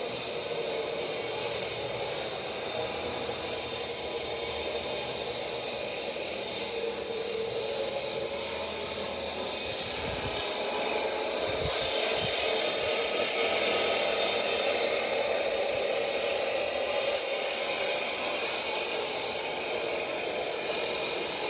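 Steady machine-like running noise with a hiss over it, swelling about twelve seconds in and then easing.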